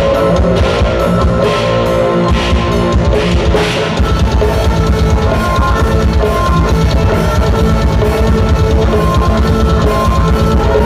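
Live black metal band playing distorted guitars, keyboard and drum kit. About four seconds in, the drums switch from steady cymbal-led strokes to a fast, dense bass-drum pattern.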